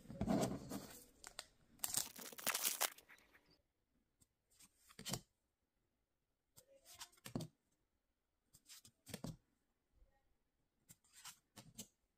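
A foil Yu-Gi-Oh booster pack torn open during the first three seconds or so, followed by trading cards slid one at a time from the front of the stack to the back, each a short papery rustle about every two seconds.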